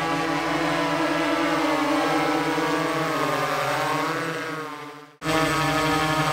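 Electric motors and propellers of a multirotor crop-spraying drone buzzing in flight, the pitch wavering up and down as the rotor speeds change. The sound fades out about five seconds in, cuts off abruptly, then resumes as a steady buzz while the drone hovers.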